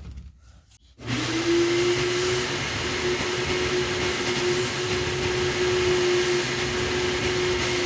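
Vacuum cleaner switched on about a second in, its motor whine rising as it spins up and then running steadily with a loud rush of air, sucking through a homemade cardboard-and-duct-tape extension tube to clean out the furnace.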